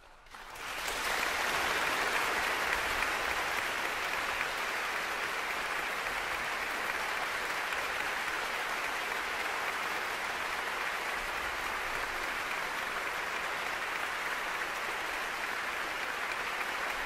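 Audience applauding: the clapping breaks out about half a second in, swells within a second, and carries on as steady, dense applause.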